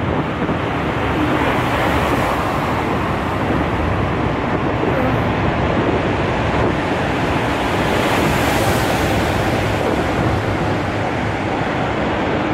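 Steady loud rushing roar inside a long road tunnel, swelling a little about two seconds in and again near eight seconds.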